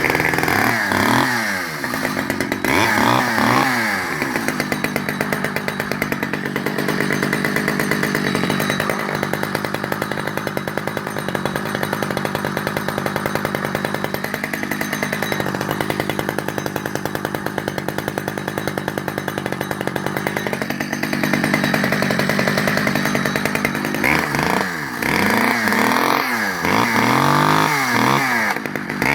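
Vintage Stihl 010AV 37cc two-stroke chainsaw running after starting. It is revved a few times in the first seconds, settles to a steady idle with two brief blips of the throttle, then is revved repeatedly near the end.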